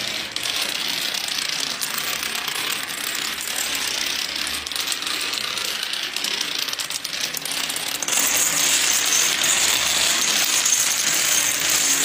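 A dense, continuous rattling and clicking noise, louder from about eight seconds in.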